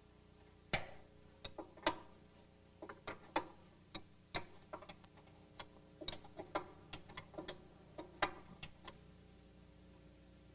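Metal clicks and clinks of a wrench working the upper control arm's attaching nut loose on its stud: an irregular run of sharp clicks, the first the loudest, stopping shortly before the end.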